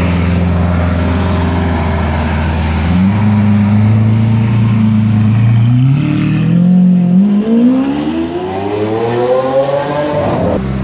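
Lamborghini Aventador's V12 engine idling, then revving as the car pulls away about three seconds in and accelerating hard, its pitch climbing in rising sweeps, the last and steepest one breaking off abruptly near the end.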